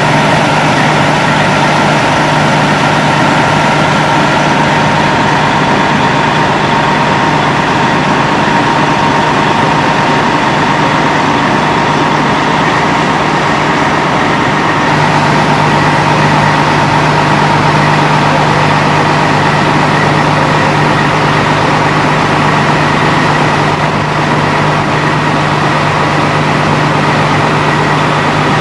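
Fire engine's diesel engine running steadily at close range: a loud, unchanging drone with a constant hum.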